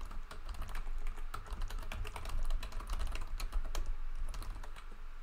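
Typing on a computer keyboard: a quick, uneven run of key clicks, several a second, thinning out near the end.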